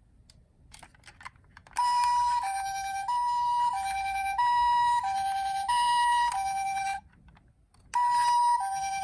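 Electronic two-tone hi-lo siren of a toy ambulance minicar, sounding the Japanese ambulance 'pee-po' pattern: a higher and a lower tone swap about every two-thirds of a second. It starts after a few light clicks about two seconds in, cuts off suddenly about seven seconds in, and starts again about a second later.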